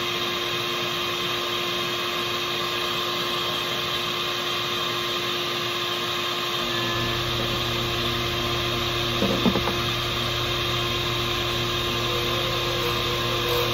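Pen lathe running steadily while a deer antler pen blank is worked on it, the motor holding several steady tones. A deeper hum joins about halfway through, and a short clatter of knocks comes a couple of seconds later.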